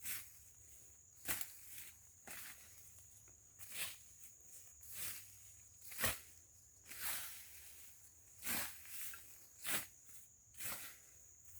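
Footsteps through dry scrub and undergrowth: about one step a second, unevenly spaced, each a short brushing crunch.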